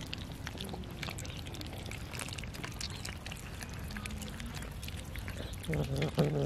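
Several cats eating raw chicken from a metal tray: wet chewing, smacking and small crunching clicks. Near the end one cat starts a low, drawn-out yowl.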